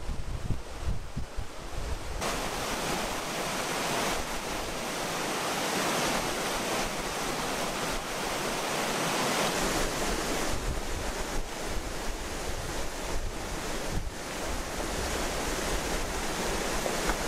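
Backpacking stove burning with a steady rushing hiss, which sets in sharply about two seconds in. Before that, wind buffets the microphone.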